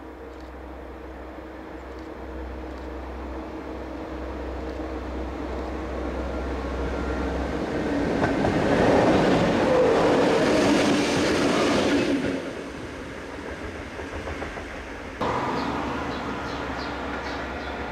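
Siemens Eurorunner diesel-electric locomotive (OSE class 220) approaching and passing close with a freight train. Its engine and wheels on the rails grow louder for several seconds, are loudest for a few seconds as it goes by, then fall away. About fifteen seconds in the sound cuts suddenly to a quieter, steady hum with faint chirps.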